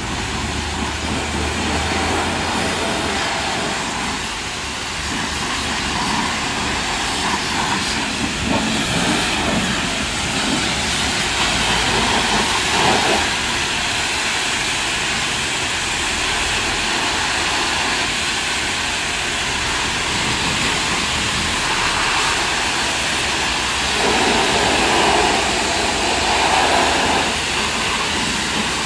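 Pressure-washer jet hissing steadily as high-pressure water sprays onto a car's bodywork.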